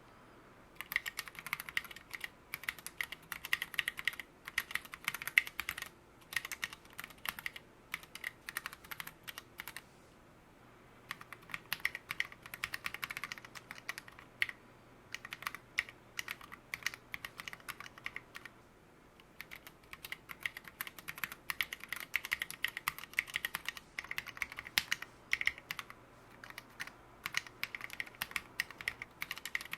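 Typing on a mechanical keyboard with lubed Gateron Merlot 60 g linear switches and SA profile keycaps, a fast run of keystroke clacks with short pauses about a third of the way in and again past the middle.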